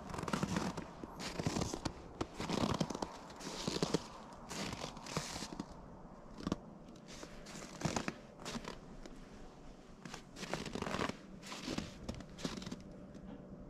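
Irregular crunching and scraping in snow: short rough strokes, about one or two a second, unevenly spaced.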